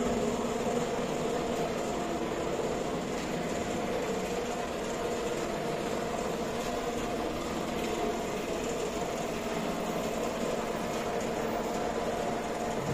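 Steady mechanical hum of a motor-driven machine running at constant speed, a low drone that does not change in pitch or level.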